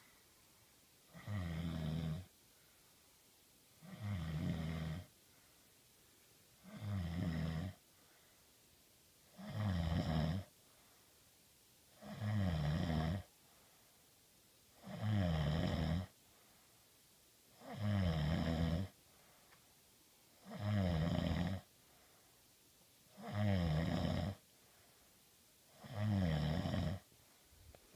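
A man snoring in his sleep. There are about ten rough, low snores, each lasting about a second and coming regularly every two and a half to three seconds, with quiet breathing gaps between them.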